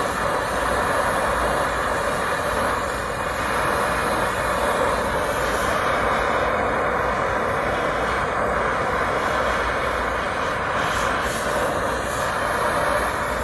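Brazing torch flame hissing steadily while it heats a soldered copper refrigerant line at a compressor stub, melting the old solder so the tube can be pushed home.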